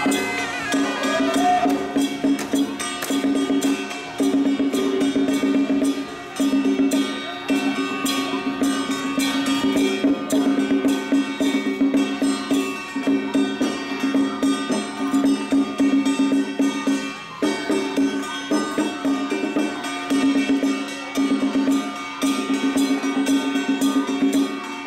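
Traditional Taiwanese temple ritual music: a fast, steady wood-block and drum beat over a continuous held tone, with brief breaks now and then.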